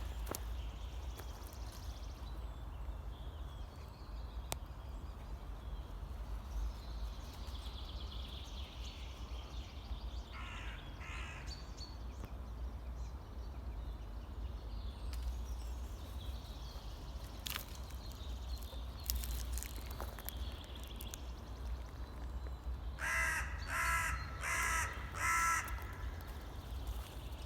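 Forest birds calling: four harsh, evenly spaced calls close together near the end, and two shorter, fainter calls about midway, with faint high birdsong. A steady low rumble runs underneath.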